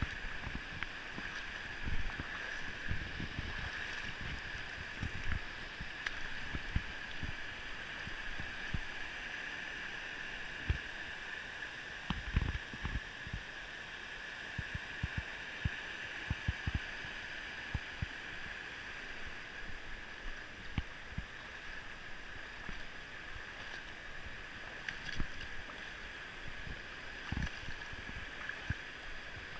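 Shallow river rushing steadily over rock ledges and riffles, with scattered low bumps on the microphone throughout.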